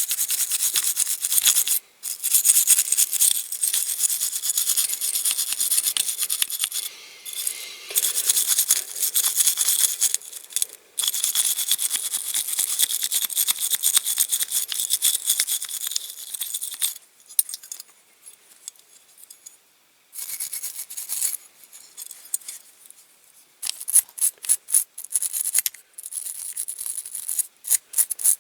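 Hand wire brush scrubbing the bare metal of a diecast toy car body in quick back-and-forth strokes with short pauses, stripping off stubborn old paint. The strokes turn into a quick, distinct rhythm near the end.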